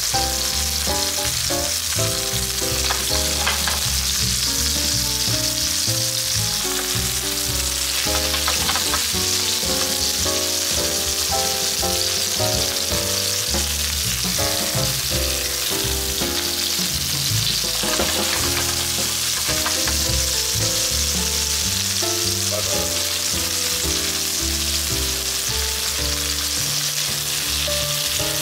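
Chicken and sliced eringi and shiitake mushrooms sizzling steadily in oil in a frying pan over low heat, with an occasional tap as chopsticks move the pieces.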